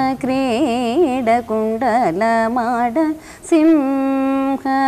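A woman singing a Tamil devotional song to the Goddess in Carnatic style. It is a single voice on long, wavering, ornamented notes, with a short break a little after three seconds in.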